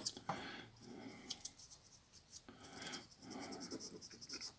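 Cotton swab rubbing and scratching over the rubber keypad of a Nokia 6310i, wiping grime off the keys: faint, quick scratchy strokes.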